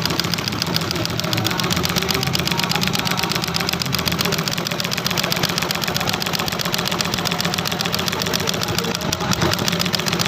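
Sewing machine stitching tarpaulin, running steadily with a fast, even rhythm of needle strokes.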